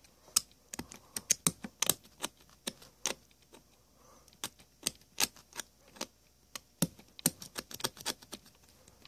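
X-Acto knife blade scraping and picking at the brass motor pulley of a belt-drive turntable, an irregular run of sharp metal clicks and scrapes, several a second, as hardened belt goo is chipped off.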